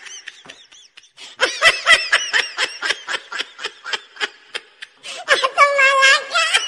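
A person laughing off camera in a fast run of short, high-pitched bursts, about four a second, ending in a longer wavering squeal near the end.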